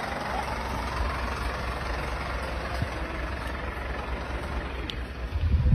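Fire engine idling with a steady low engine rumble under general street noise; near the end a louder low rumble briefly rises over it.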